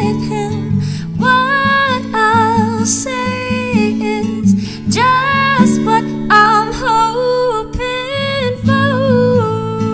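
Background music: a woman singing a song with acoustic guitar accompaniment, holding long notes.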